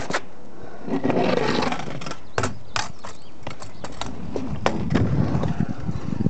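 Hard stunt-scooter wheels rolling over the concrete of a skatepark, with a string of sharp clacks and knocks. A low rolling rumble grows near the end as the rider comes in toward the ramp.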